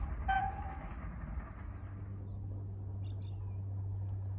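Distant GWR steam train, its whistle giving a short toot just after the start over the fading rumble of the train. Then birds chirp over a steady low hum.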